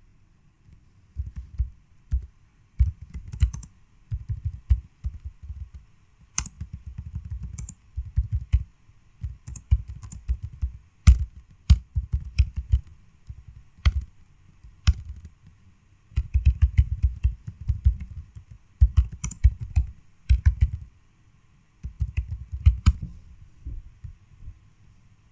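Typing on a computer keyboard: quick bursts of keystrokes with short pauses between them, stopping near the end.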